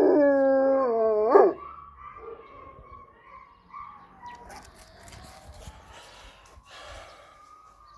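East European Shepherd dogs howling in response to a siren. The howl breaks off about a second and a half in with a short rising-and-falling yelp. After that a distant emergency-vehicle siren wails faintly, slowly rising and then falling in pitch.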